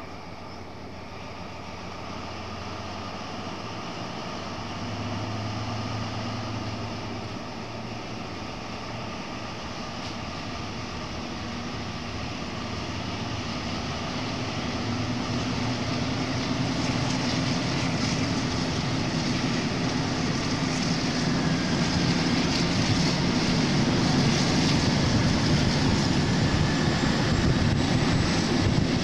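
BR 219 diesel-hydraulic locomotive working hard as it pulls its train away from a station, its engine note and the running noise of the train growing steadily louder as it gathers speed, heard from an open window of the train.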